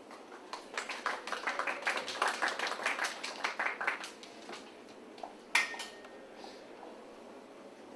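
Scattered applause from a small audience for about three and a half seconds. Then, a little over five seconds in, a single sharp knock with a short ring.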